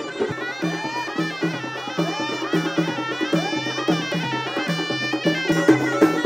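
Moroccan welcome troupe playing traditional music: frame drums and jingled tambourines beating a steady rhythm of about two strokes a second, with a wind instrument carrying a stepping melody over them.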